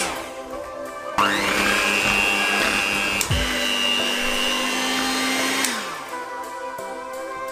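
Electric hand mixer (Vitek) switching on about a second in with a rising whine and running steadily as its beaters work cocoa into cake batter; its pitch steps up about halfway, and near the end it winds down with a falling whine. Background music plays throughout.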